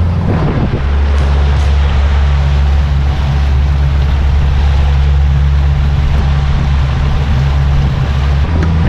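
A small boat's motor running steadily under way, a deep even hum under the rush of water and wind buffeting the microphone.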